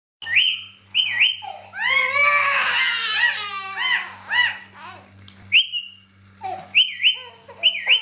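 Indian ringneck parakeet giving short, sharp squawks that sweep up in pitch, in a few quick bursts near the start and again near the end. In between, a baby fusses and whimpers with rising-and-falling cries.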